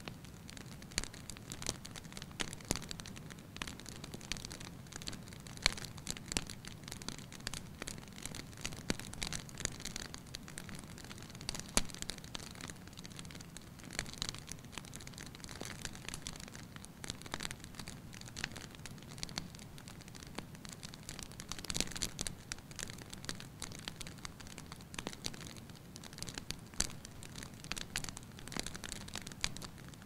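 Wood log fire crackling, with irregular sharp pops and snaps over a steady low rush of burning flames.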